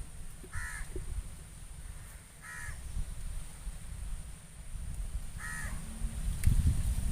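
A crow cawing three times, each a short harsh call, about two to three seconds apart, over a low rumble.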